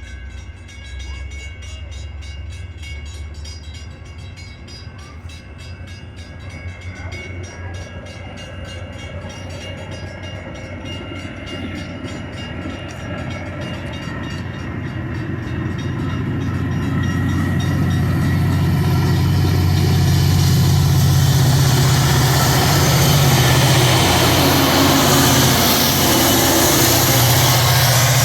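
Metra diesel commuter train pulling into the station. The locomotive's engine hum and the rolling noise grow steadily louder over about twenty seconds as it comes alongside, then hold steady.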